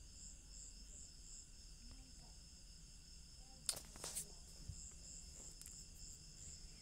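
Faint high-pitched insect chirping, pulsing about three times a second, with two sharp clicks a little under four seconds in.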